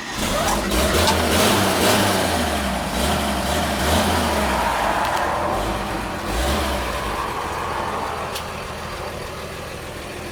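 The truck's rebuilt original six-cylinder Thriftmaster engine, an inline six, running just after a cold start. Its speed rises and falls a few times over the first seven seconds, then it settles to a steadier, quieter idle.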